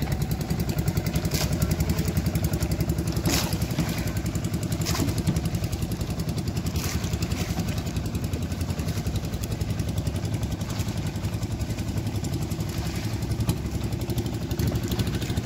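Engine of an outrigger fishing boat idling, a steady rapid chugging, with a few sharp knocks over it.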